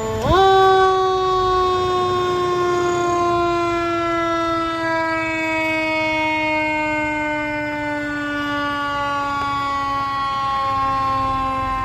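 Fire engine's siren: a single tone jumps up sharply in pitch and loudness about half a second in, then slowly falls in pitch as it winds down.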